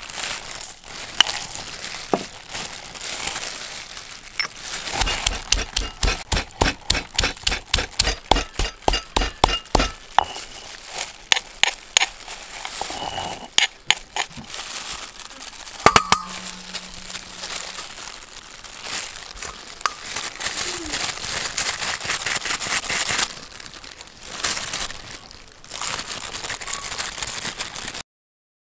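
Wooden pestle pounding spices and shallots in a stone mortar: a long run of regular thudding strikes, about three a second, from about five seconds in, then looser strikes. Plastic gloves and bags crinkle around it as the ingredients are handled.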